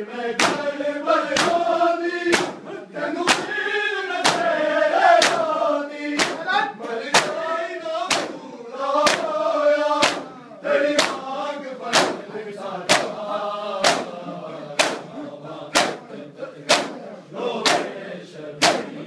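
A crowd of men doing matam, striking their bare chests with open hands in unison in a repeating pattern of three strikes and a short pause. They chant a noha, a mourning lament, over the strikes, and the chanting is fainter in the second half.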